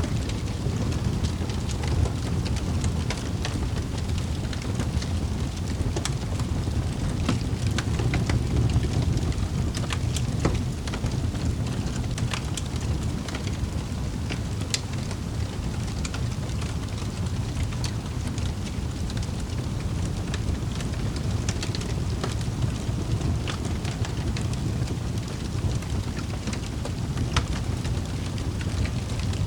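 Wood fire burning in a fireplace: a steady low rumble of the flames with frequent sharp crackles and pops scattered irregularly throughout.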